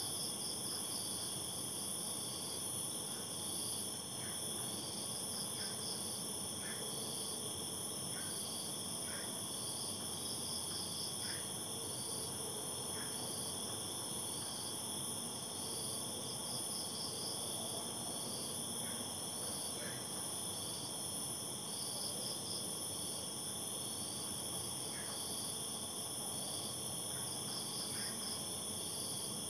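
Night insects, crickets, calling together: a steady high-pitched trill from several insects, with one repeating a short chirp every couple of seconds.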